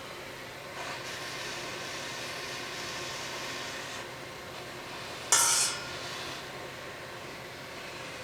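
A steady hiss, with one sudden loud burst of hissing noise about five seconds in that dies away within a second.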